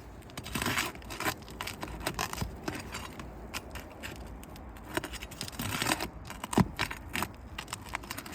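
An overdriven roofing nail being pried out of asphalt shingles: irregular scraping and crinkling of the shingles, with sharp metal ticks, the sharpest about six and a half seconds in.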